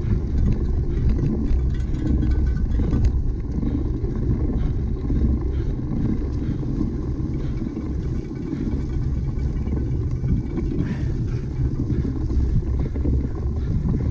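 Steady low rumble of wind buffeting the microphone, mixed with bicycle tyres rolling over rough ground while riding a cyclocross course.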